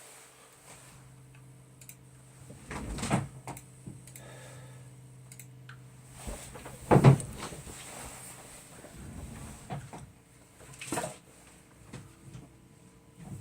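Several clunks and knocks, the loudest about seven seconds in, over a steady low hum that stops at that loudest knock.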